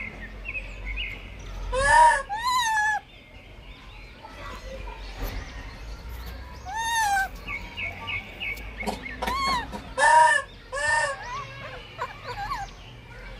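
Outdoor animal sounds: birds chirping, with about five short, high-pitched calls that rise and fall, standing out loudly above the chirps.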